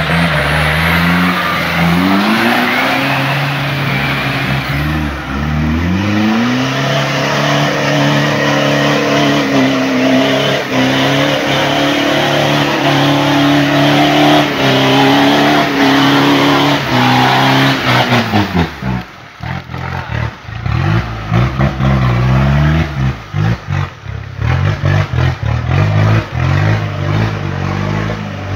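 Off-road 4x4's engine revving hard under load while its tyres spin through deep mud, the revs climbing over the first few seconds and then held high. About eighteen seconds in the revs drop sharply, and the engine note then rises and falls in short, choppy bursts.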